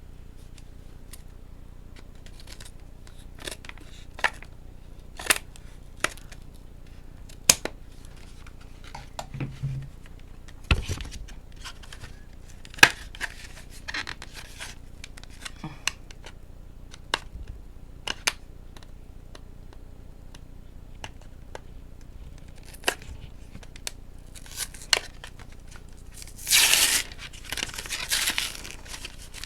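Pokémon card blister packaging being handled and opened: scattered sharp clicks and taps, then a longer tearing sound of packaging being ripped open near the end.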